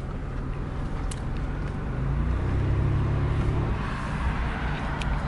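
Car engine and road noise heard from inside the cabin: a steady low hum that gets a little louder for a couple of seconds in the middle.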